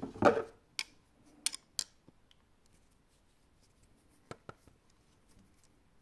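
Metal clicks and clacks from a Textima sewing machine's presser-foot lifter latch being worked by hand: a loud clack at the start, three sharp clicks over the next two seconds, and two quick clicks past four seconds.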